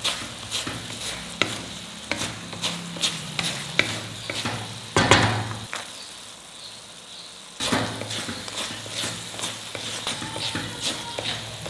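A spatula scraping and stirring thick, sizzling coconut thirattipal in a metal kadai, with repeated scrapes and clicks against the pan. About five seconds in there is a brief louder clatter as cashews are dropped in. It goes quieter for about two seconds before the stirring picks up again.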